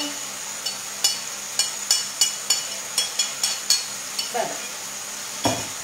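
A spoon clinking and scraping against a ceramic plate, a quick run of a dozen or so sharp clinks, as food is knocked off the plate into a frying pan, over a faint sizzle from the pan.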